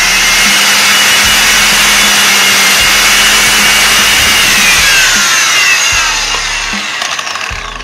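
Bosch GWS 6-100 4-inch angle grinder running at full speed with a sanding flap disc, grinding down the plastic end cap of a pleated filter. From about five seconds in its pitch falls and it gets quieter as it winds down.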